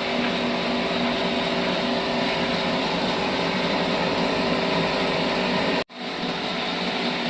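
Sawmill with a trolley log carriage running steadily, a constant hum with several steady whining tones over a noisy rush. The sound cuts out for an instant about six seconds in, then picks up unchanged.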